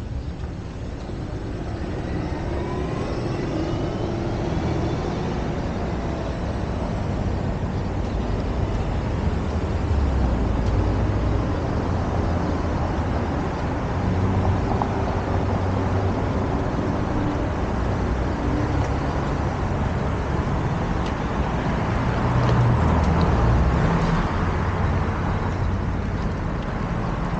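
Street traffic: cars passing with a steady rumble of tyres and engines, swelling twice as vehicles go by, with a faint rising engine whine a few seconds in.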